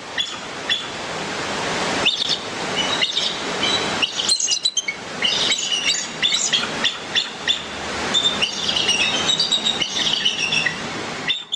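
Bald eagle calls: runs of thin, high-pitched chirping and twittering, repeated in clusters, over a steady background hiss.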